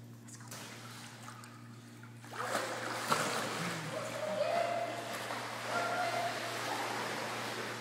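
Pool water splashing and sloshing as a pit bull puppy swims, starting about two seconds in, with a sharp knock about a second later.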